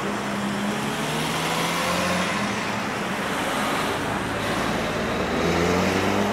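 A motor vehicle's engine running close by, over a steady rushing noise, its hum stepping down in pitch about halfway through and growing slightly louder near the end.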